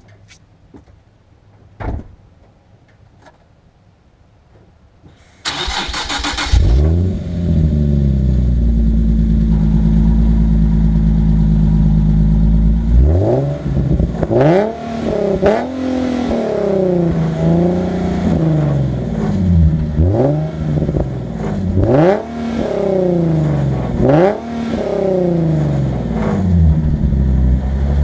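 A Nissan 370Z's 3.7-litre V6 through a Top Speed full dual exhaust system with a centre resonator. After a single thump, the starter cranks about five seconds in, and the engine catches and holds a steady fast idle. From about halfway it is blipped in a series of short revs that rise and fall back toward idle, in a deep tone.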